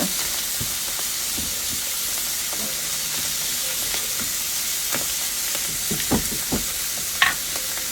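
Onions, garlic and canned mushrooms sizzling steadily in an iron skillet, with a few short clicks and scrapes of a utensil stirring them between about five and seven seconds in.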